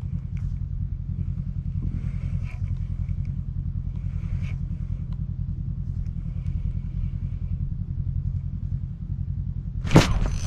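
Small boat's outboard motor running steadily at low speed, a low even drone. About ten seconds in, a sharp knock and rustling as a hand touches the camera microphone.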